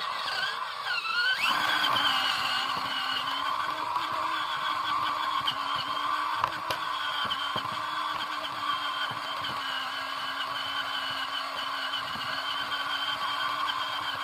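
Electric RC car's motor and gears whining as it drives, rising in pitch over the first couple of seconds and then holding a steady, slightly wavering whine.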